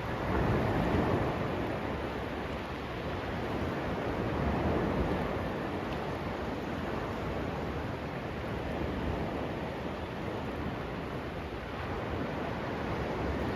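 Sea surf washing onto a sandy beach: a steady rush of waves that swells about a second in and again around four to five seconds.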